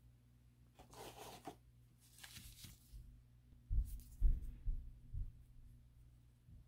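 Faint handling noises of a small metal model-locomotive gear truck being turned in the fingers: two short rustles about one and two seconds in, then a cluster of low thumps around four to five seconds in.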